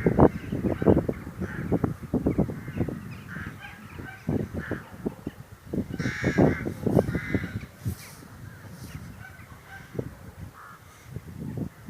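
A flock of birds calling, many short calls overlapping irregularly, busiest near the start and again about six seconds in, thinning out for a few seconds before picking up near the end.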